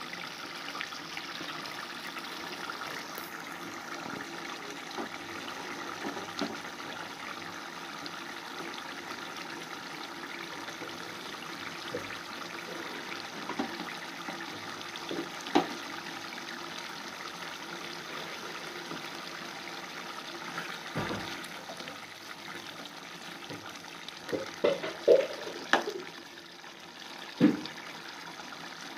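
Chicken curry gravy simmering in a metal pan: a steady bubbling hiss with occasional sharp clicks, several close together about 25 seconds in.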